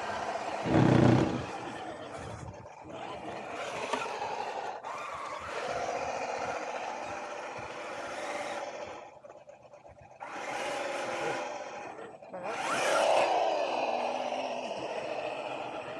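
Electric motor and gearbox of a scale RC crawler whining, the pitch rising and falling as the throttle is worked, with a loud thump about a second in.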